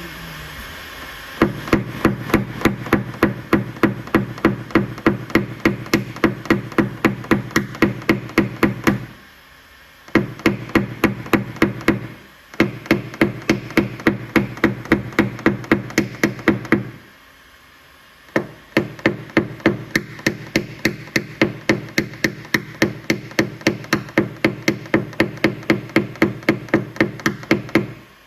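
Paintless dent repair tapping: a small hammer striking a knockdown punch against a car's rear door panel in quick, even taps, about four a second, each with a short metallic ring. The tapping comes in four runs with three short breaks, knocking down the high spots around a dent.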